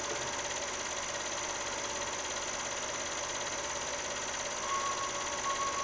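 Steady mechanical hum and hiss of a running machine, with a faint high tone coming in near the end.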